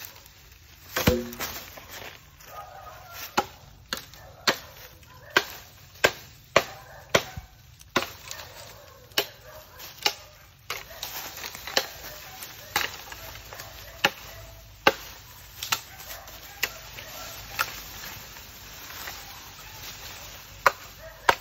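Repeated chopping blows of a blade into a cut bamboo pole: about two dozen sharp strikes, roughly one every half second to second, with a short pause near the end.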